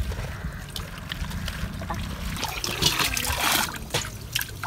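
Water trickling and splashing as clothes are wrung and rinsed by hand in a metal basin of soapy water beside a flowing irrigation channel. About two and a half seconds in comes a louder rush of water as the basin is tipped and emptied.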